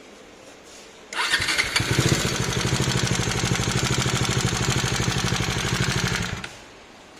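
Bajaj Dominar 400 single-cylinder engine starting and running evenly for about five seconds, then cutting off suddenly. The bike has a knocking tappet noise, which was traced to the camshaft and rocker arm.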